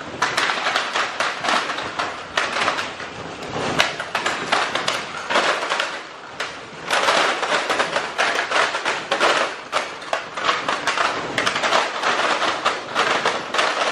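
Hundreds of packaged fishing lures in plastic and cardboard packs pouring out of a cardboard box and clattering onto a concrete floor and a person lying on it, a dense rattling cascade with a brief lull about six seconds in.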